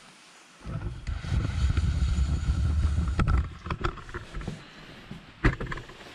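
Cardboard chainsaw box being handled during unboxing: a low rumble for about three seconds, then scattered knocks and clicks, the loudest near the end.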